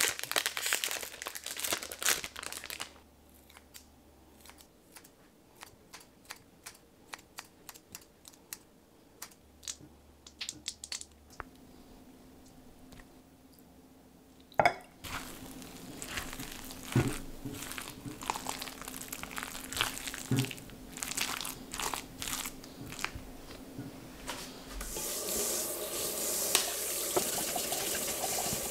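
A plastic ham packet crinkling as it is torn open, then a run of light clicks. About halfway there is a sharp knock, followed by handling noises while the potato salad is dressed in a glass bowl. Near the end a kitchen tap starts running with a steady splashing hiss.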